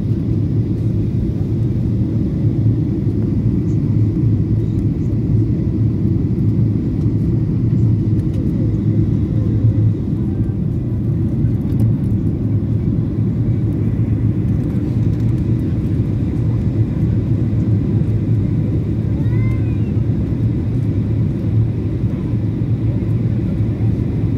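Steady low rumble of engine and airflow inside the cabin of a Boeing 737-800 descending on approach to land.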